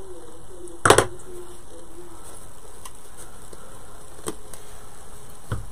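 Hands working a plastic bottle of Aleene's tacky glue and its stuck lid: one sharp click about a second in, then two fainter clicks later.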